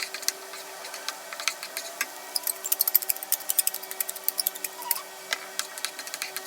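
Pork frying in a pan, crackling with irregular sharp pops that come thickest a couple of seconds in, over a faint steady hum.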